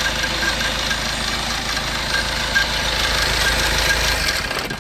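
Fiat Doblo's 1.3 four-cylinder diesel engine running with its timing chain knocking, then switched off just before the end.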